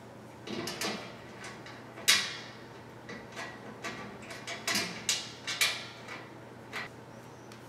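Small metal clinks and taps as bolts and fittings are handled and fitted against the steel rail of a metal bed frame. There are about ten sharp clicks, the loudest about two seconds in.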